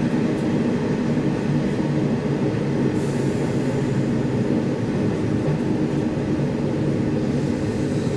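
Sanriku Railway diesel railcar running along the line, heard from inside the car: a steady engine drone with wheel and rail rumble, and a brief hiss about three seconds in.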